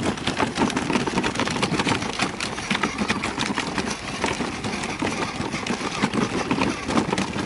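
Battery-powered toy ride-on motorcycle moving over a dirt path: a steady mechanical running noise thick with irregular rattling and crunching from its plastic wheels and body.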